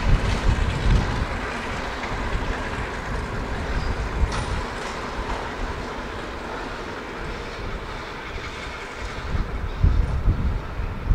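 Diesel-hauled heritage train running along the track, a steady noisy rumble that swells low near the start and again near the end.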